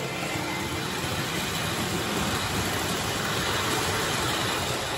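Lionel O-gauge model freight cars rolling past close by: a steady running noise of metal wheels on the rails, with no whistle or horn.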